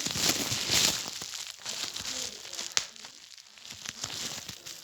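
Antistress toy being worked by hand, crinkling and crushing loudly for about a second, then quieter crackling with a sharp pop near the middle and a few smaller clicks.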